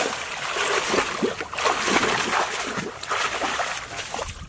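Hands and feet splashing and churning through shallow muddy water, a run of repeated splashes and gurgles while groping for fish, which stops near the end.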